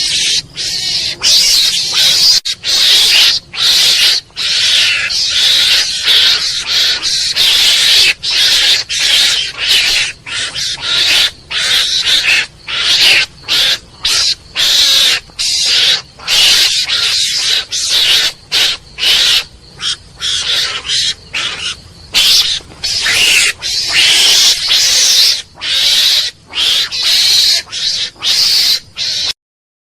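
Mongoose calling: harsh, hissy calls repeated in quick runs with short gaps between them, cutting off abruptly near the end.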